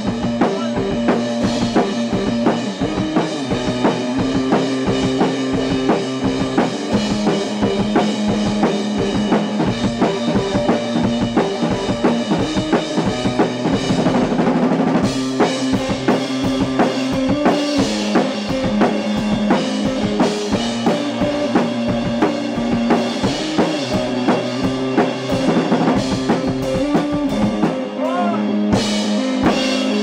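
Electric guitar and drum kit playing a rock jam together: a steady kick-and-snare beat with cymbals under sustained guitar chords, the guitar part changing about halfway through.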